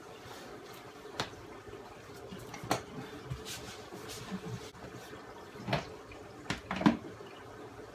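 Steady running-water noise from a reef aquarium's circulation, with several sharp knocks and clicks scattered through it as pipe and the wooden stand are handled.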